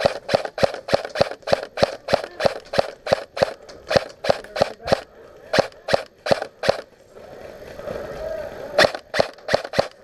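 Airsoft electric rifle, a Krytac CRB, firing rapid semi-automatic shots: sharp cracks at about four a second. They stop briefly, then a quicker run of about five shots comes near the end.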